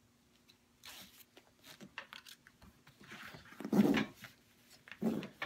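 Rustling and scraping of a seat cover's straps and fabric as they are pulled and fastened under a car seat, with two louder rustles, one around the middle and one near the end.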